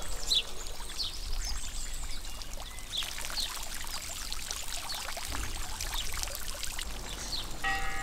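Garden fountain: jets of water spraying up from a stone sphere and splashing steadily into a pool.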